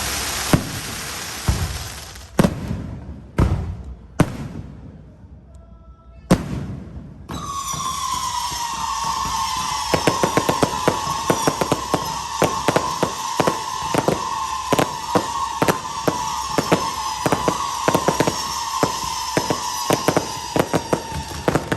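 Fireworks: a handful of separate booms in the first six seconds. Then, from about seven seconds in, a long whistling tone that sinks slowly in pitch, with rapid crackling pops over it from about ten seconds in.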